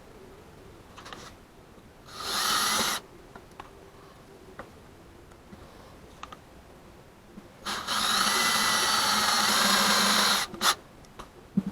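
Power drill run twice: a short burst of about a second, then a longer steady run of nearly three seconds, followed by a few clicks.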